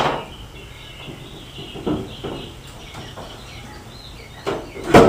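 Birds chirping in the background, with a few knocks around two seconds in and a loud clunk near the end as the metal truck-bed parts are handled.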